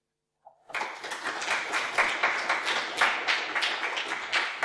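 Audience applauding, many hands clapping, starting just under a second in.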